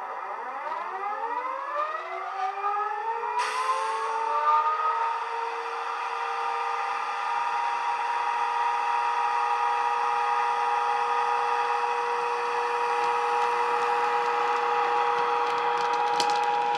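Class 92 electric locomotive sound from a DCC sound decoder, played through the model's small speaker: the traction inverters whine, rising in pitch together as the locomotive pulls away, then hold a steady multi-tone hum. A hiss comes in suddenly a few seconds in, and a few sharp clicks come near the end.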